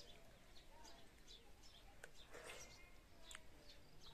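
Faint birds chirping repeatedly, with a few small clicks and a brief rustle a little over two seconds in.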